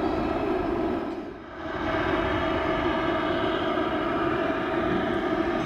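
Airbus A340-600's four Rolls-Royce Trent 500 jet engines running at taxi power: a steady jet whine and rumble with several held tones. The sound dips briefly about a second in, then returns unchanged.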